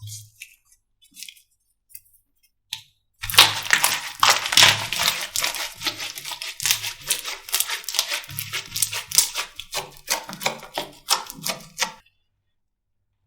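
Slime being squeezed and pressed by hand, making dense crackling and popping clicks with soft low thuds. It starts with a few scattered clicks, builds to continuous crackling about three seconds in, and stops abruptly near the end.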